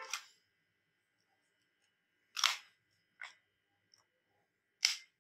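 Plastic clacks and clicks of a spring-powered airsoft pistol as its slide is worked: a sharp clack about two and a half seconds in, two fainter clicks after it, and another sharp clack near the end.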